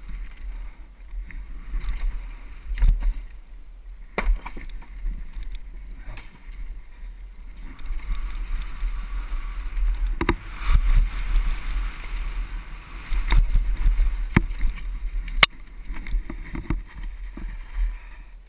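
Mountain bike descending a dirt trail, heard from a helmet-mounted camera: wind rumble on the microphone and tyre noise on dirt, with repeated sharp knocks and rattles from the bike over bumps and wooden features.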